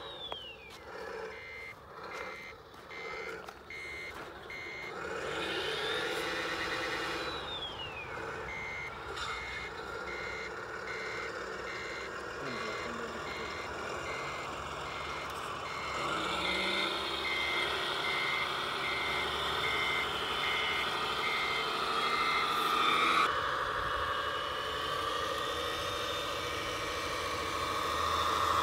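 Radio-controlled 6x6 truck backing up, its electronic sound unit giving a steady series of reversing beeps. Under the beeps is a motor whine that rises and falls in pitch, loudest in the second half.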